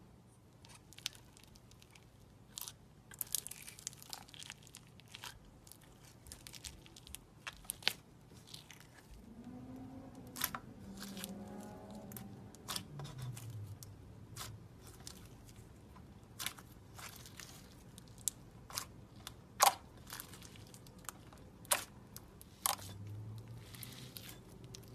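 Clear slime loaded with foam beads being pressed, squished and stretched by hand, giving irregular sharp crunches and pops.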